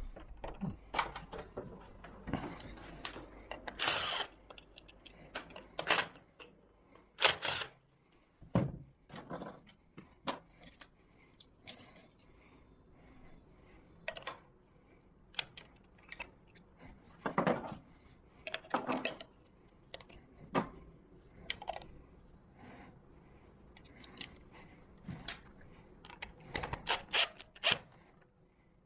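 Scattered metallic clicks, taps and knocks of door lock hardware being handled and fitted, coming irregularly with gaps between, a few sharper knocks standing out.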